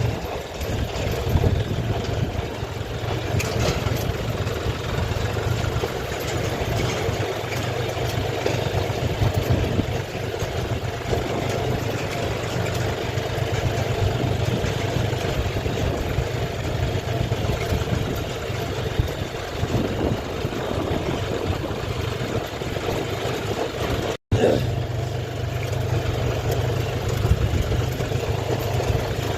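Diesel tractor engine running steadily close by, with the sound cutting out sharply for an instant about 24 seconds in.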